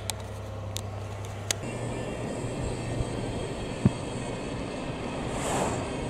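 Moving car heard from inside the cabin: steady engine and road noise with wind, changing to a rougher, fuller rumble about one and a half seconds in. A couple of short sharp knocks, the loudest about four seconds in.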